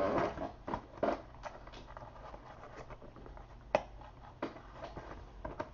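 Faint, scattered light clicks and taps with soft rustling between them, one sharper click a little before four seconds in.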